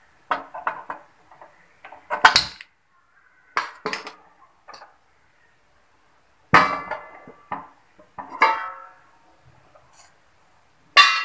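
A kadai being set on the stove and handled: scattered sharp clanks and knocks, the loudest about six and a half and eight and a half seconds in, each ringing briefly.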